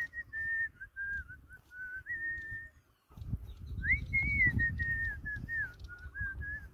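A person whistling a tune: one clear wavering tone in two phrases of held notes that step and glide in pitch, with a short pause between them about three seconds in. A low rumbling noise joins underneath from then on.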